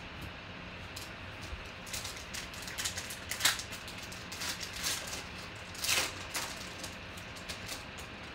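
A trading-card pack wrapper crinkling and tearing as it is ripped open, and the cards rustling as they are handled. It comes as a run of short crackling rustles, loudest about three and a half and six seconds in, over a steady low hum.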